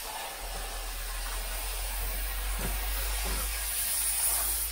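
Aerosol spray can sprayed in one long, steady hiss that stops near the end.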